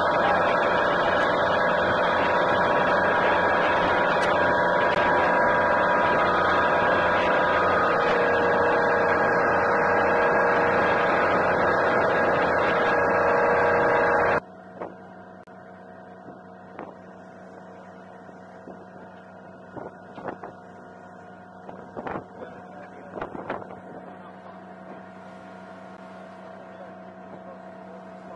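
Loud, steady machinery drone with several steady whining tones. About halfway through it cuts to a much quieter low hum with a few scattered knocks.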